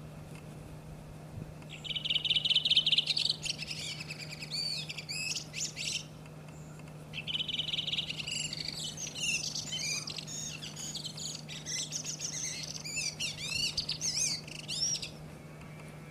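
A redwing singing two song phrases, the first about two seconds in and a longer one from about seven seconds. Each opens with a fast run of repeated high notes and goes on into a varied twitter of quick rising and falling notes.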